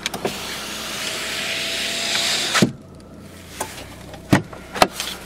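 Lada Granta's electric front window motor running, a steady whir for about two and a half seconds that stops abruptly with a clunk as the glass reaches the end of its travel. A few sharp clicks follow.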